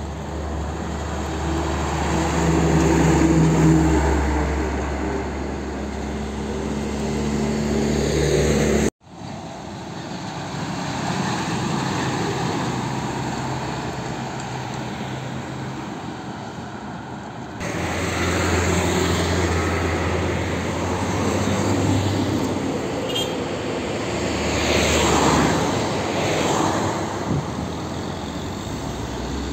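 Heavy diesel trucks passing on a road: a low engine drone with tyre and traffic noise that swells and fades as each truck goes by. The sound breaks off abruptly about 9 seconds in and changes suddenly again about 18 seconds in.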